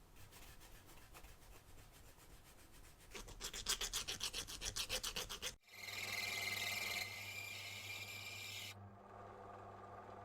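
Rapid back-and-forth rubbing strokes, about five a second, growing louder about three seconds in, typical of hand-sanding or scrubbing a small metal part. Partway through they cut off abruptly into a steady hiss over a low hum; the hiss stops near the end and the hum goes on more quietly.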